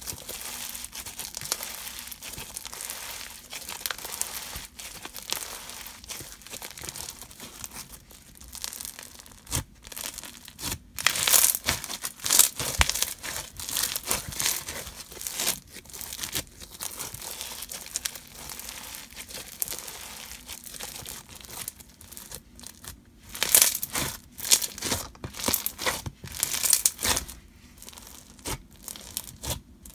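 Clear-base slime packed with bingsu beads being squished, stretched and folded by hand, the beads making a super crunchy sound in irregular bouts that are loudest around the middle and again about three quarters of the way through.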